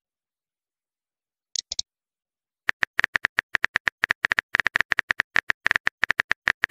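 Phone-keyboard typing sounds from a texting app: rapid, uneven key clicks, many a second, starting a little under three seconds in. Two short ticks come just before them.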